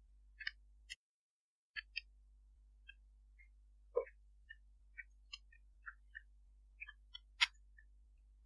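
Computer keyboard typing: faint, irregular key clicks, with one louder click about seven seconds in. The background drops to dead silence for under a second about a second in.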